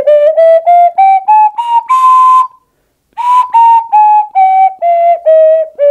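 3D-printed PLA ocarina played as a scale: about eight short notes rising one octave to a held top note, then, after a brief pause, the notes stepping back down.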